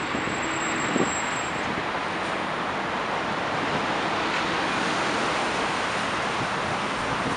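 City traffic passing on a wet road: a steady hiss of tyres on wet pavement mixed with car engines. A short thump sounds about a second in.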